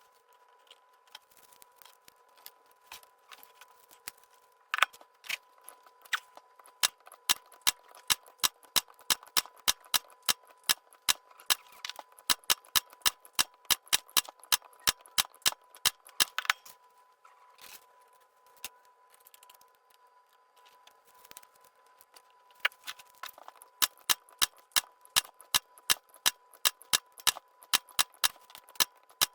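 Battery spot welder firing weld after weld on 18650 cells and copper-nickel busbar: sharp snaps about two a second, with a lull partway through, over a steady high-pitched whine.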